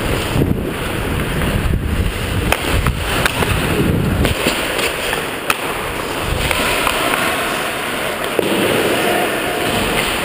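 Hockey skate blades scraping and carving on rink ice, with wind rushing over a body-worn action camera as the player skates, and a few sharp clacks of stick on puck.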